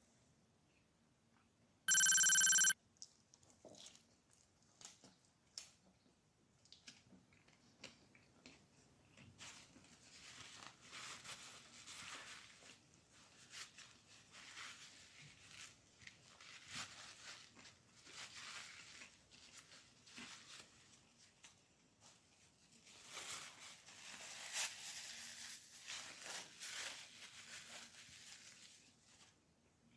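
A short, loud electronic ringing tone about two seconds in, an edited-in sound effect. Then long stretches of paper food-wrapper rustling and crinkling, in uneven bursts.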